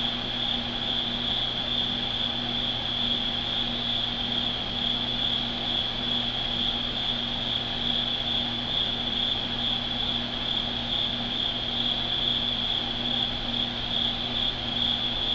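Night insects trilling in a steady, continuous high chorus, over a low steady hum.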